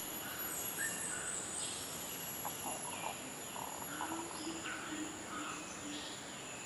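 Rainforest morning chorus: many birds giving short repeated calls at several pitches over a steady high-pitched insect drone.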